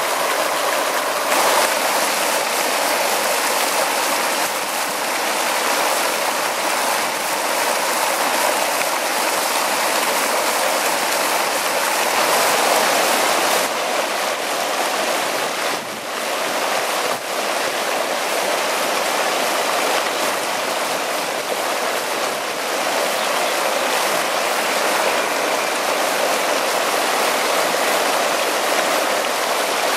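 Stream water pouring over a low ledge and churning into white foam, a steady rushing and splashing noise.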